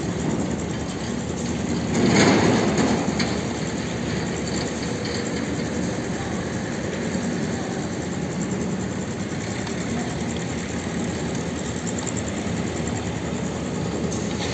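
A machine running steadily, swelling louder for about a second near the start.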